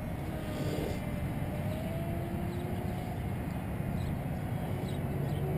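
Faint whine of a small electric RC parkjet's A1510 brushless motor and cut-down 5-inch propeller flying far overhead, its pitch drifting slowly up and down with the throttle. Under it is a low steady rumble.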